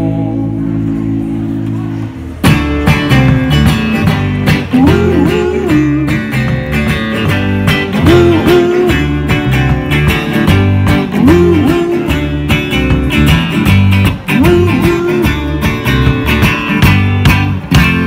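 Live band instrumental break on electric guitar and bass guitar: a held chord rings for about two seconds, then the full band comes in with fast rhythmic strumming and a lead phrase that recurs every few seconds.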